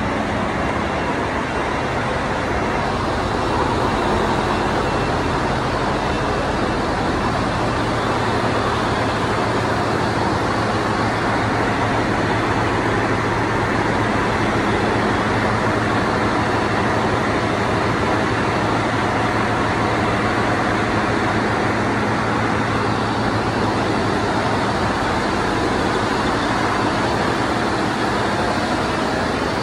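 Steady loud din of a ship's engine room: machinery running continuously, with a constant low hum under an even noise.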